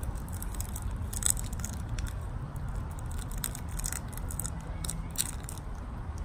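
Small plastic candy wrapper crinkling in the fingers as a soft chewy candy is unwrapped: scattered small crackles and clicks over a low, steady background rumble.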